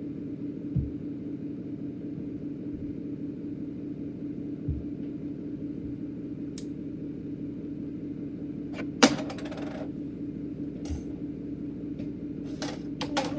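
A steady low hum, with a few soft thumps, one sharp click and brief rattle about nine seconds in, and a quick run of clicks near the end.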